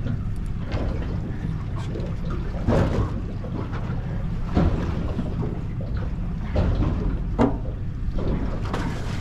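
Yellowfin tuna being gaffed alongside a boat: several sharp knocks and splashes over a steady low rumble from the boat.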